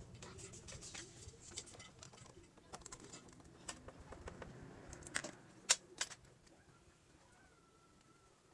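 Faint clicks and light knocks of an electric fan's metal motor and plastic gearbox bracket being handled and screwed together with a screwdriver; three sharper clicks come about five to six seconds in.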